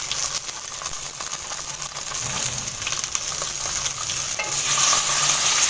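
Chicken pieces sizzling as they fry in hot oil in a non-stick pan. About four and a half seconds in the sizzle swells louder as water goes into the hot pan and turns to steam.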